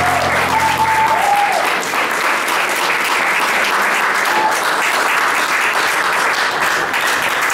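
An audience applauding steadily at the end of a jazz-blues piece, while the band's last low note rings out and fades in the first second or so.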